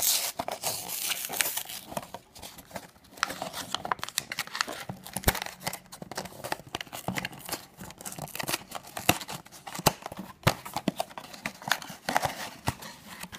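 Hands handling and prying open a small cardboard blind box: rustling and scraping of the card with many sharp clicks and short tearing sounds.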